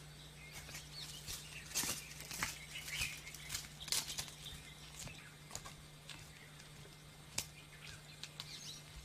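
Footsteps crunching irregularly on dry leaves and twigs along a dirt path, over a steady low hum.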